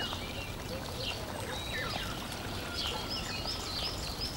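Small birds chirping and twittering in quick, varied calls over a steady rushing hiss like flowing water: a nature-ambience background track.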